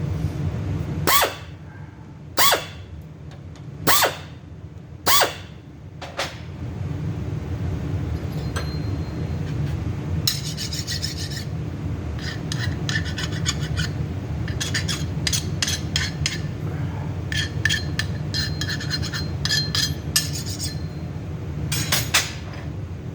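Hand deburring of a connecting rod's bolt-hole edge, steel scraped by a hand tool to put a chamfer on it: four long rasping strokes about a second and a half apart, then, after a pause, quicker, lighter scraping in short runs. A steady low hum runs underneath.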